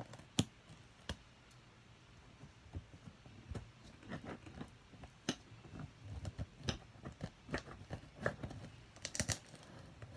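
Irregular clicks, taps and crinkles of a toy's packaging being handled and opened by hand, with a quick cluster of sharper clicks near the end.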